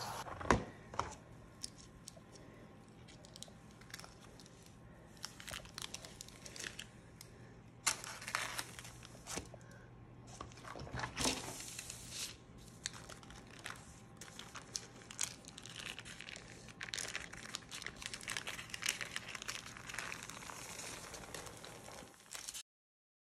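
Baking parchment crinkling and rustling in irregular crackles as it is peeled off a baked chocolate sponge sheet, with a sharp knock about half a second in. The sound cuts off abruptly near the end.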